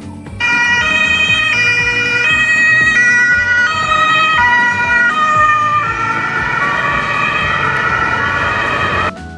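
Ambulance siren: a two-tone hi-lo call alternating about every 0.7 s, switching about six seconds in to a rising and falling wail. It starts abruptly just under half a second in and cuts off sharply near the end.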